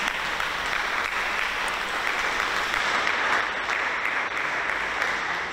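Congregation applauding steadily.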